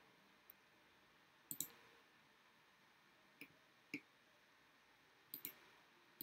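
Faint clicks of a computer mouse, a handful of single clicks and two quick double-clicks, against near silence.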